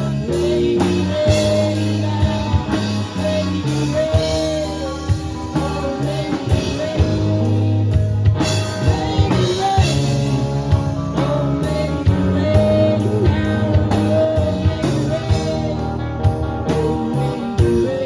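A band playing blues-rock with a drum kit keeping a steady beat under bass and guitar, and a bending lead melody on top.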